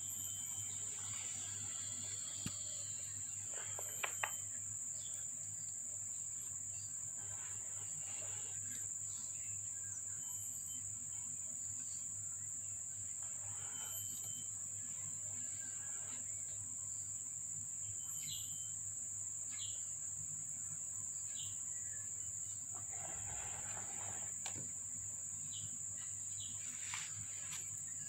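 A steady, high-pitched drone of insects, with a low hum beneath it and a few faint clicks and rustles.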